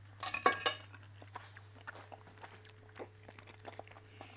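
A brief clatter of cutlery against the plate near the start, then a person chewing a mouthful of tender stuffed squid, with small soft mouth clicks over a faint steady kitchen hum.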